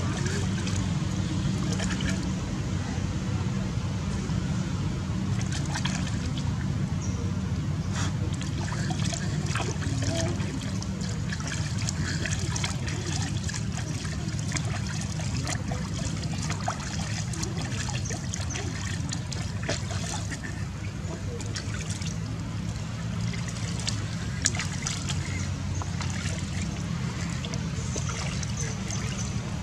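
Water scooped and poured by hand over a baby macaque, trickling and splashing back into a plastic basin in small irregular splashes, over a steady low rumble.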